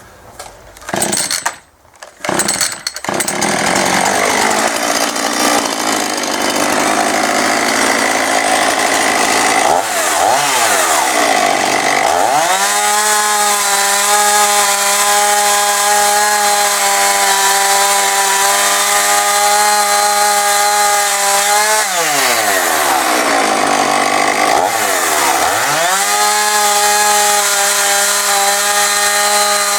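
Husqvarna 450e two-stroke chainsaw starting up after a couple of short bursts and running at high revs while cutting into wood. Twice the revs drop right down and climb back to a steady high whine. It is the cut during which the chain keeps working loose.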